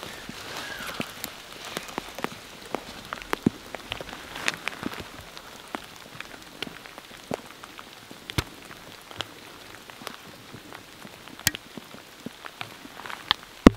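Rain falling, with many separate drops ticking sharply close by at irregular moments.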